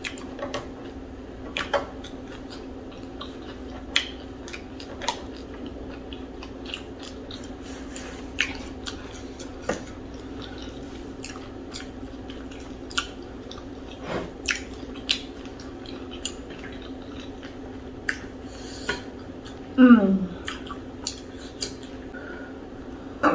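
Close-up chewing and eating sounds of fufu and okra soup: wet mouth clicks and smacks scattered through, over a steady low hum. About 20 seconds in there is one short, loud low sound that falls in pitch.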